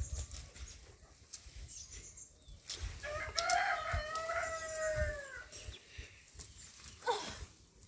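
A rooster crowing once: a long, drawn-out call starting about three seconds in that rises and then falls away. A second, short call falls in pitch near the end.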